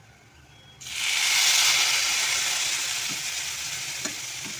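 Water poured into a hot pan of spiced, oil-roasted cluster beans, hissing and sizzling: a sudden loud hiss about a second in that slowly dies down, with a few light knocks near the end.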